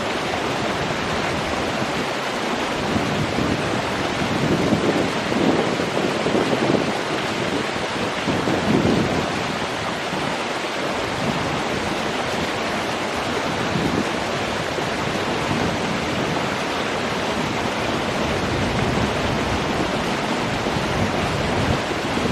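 Running water: a steady rush with irregular surges.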